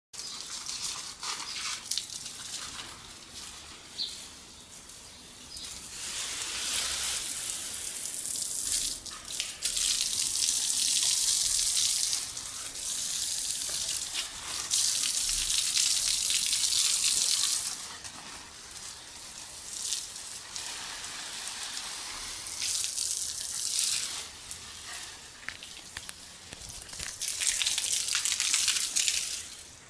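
Water jetting from a garden hose and splashing onto plants and stone paving, a hissing spray that swells and fades in several long spells.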